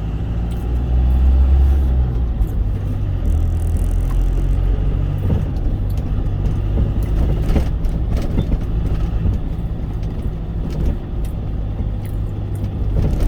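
Cargo truck's engine drone and road noise heard from inside the cab while driving, a steady low rumble.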